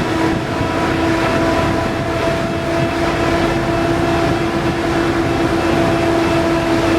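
Ferry's engines and machinery running steadily: a low rumble with a held hum and a couple of fainter, higher tones.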